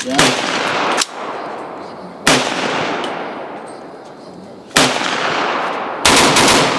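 Gunshots, each followed by a long echoing ring-out. Single shots come a second or more apart, then a quick burst of several near the end.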